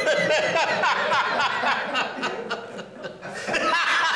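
A man laughing loudly and without pause, easing off briefly about three seconds in, then building up again.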